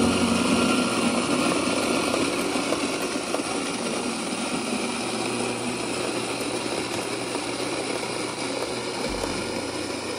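Electric burr coffee grinder (Rancilio, doser type) running steadily as it grinds coffee beans: a motor hum with an even grinding noise that slowly gets quieter. A low bump comes near the end.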